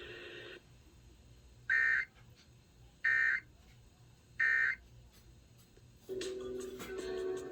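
EAS end-of-message signal: three short bursts of buzzy, warbling digital data tones about a second apart, closing the severe thunderstorm warning broadcast. Music starts about a second and a half after the last burst.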